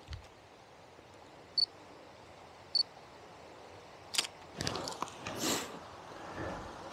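A digital camera beeps twice, short high electronic beeps a little over a second apart. About four seconds in comes a click, followed by rustling and crunching.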